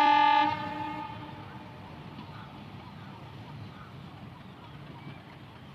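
Nilgiri Mountain Railway train's horn holding one steady note that stops about half a second in. A faint steady background noise follows as the train approaches.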